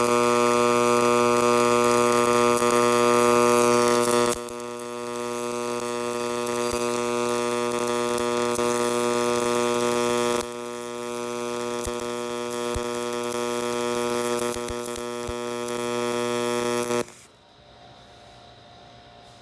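Pulsed MIG welding arc from a Millermatic 255 running stringer beads on 3/8-inch steel with .035-inch wire and 90/10 argon-CO2 gas: a steady, even buzz. It drops a little in level about 4 and 10 seconds in, then stops abruptly about 17 seconds in.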